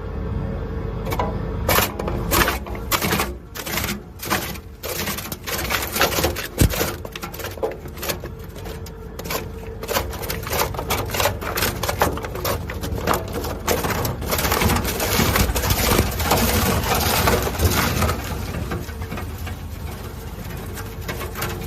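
Weima WL 4 single-shaft wood shredder running under load. Its rotor knives crack and snap the wood waste in rapid, irregular bursts over a steady machine hum, with the busiest cracking from about two-thirds of the way in.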